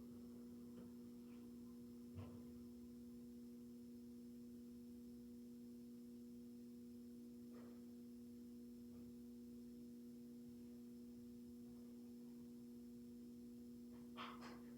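Near silence with a steady low hum, and two faint clicks: one about two seconds in and one near the end.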